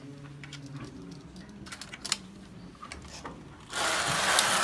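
Scattered small metallic clicks and taps, then near the end a loud rushing rattle about a second long, typical of the carriage of a hand-operated V-bed flat knitting machine being slid across the needle beds.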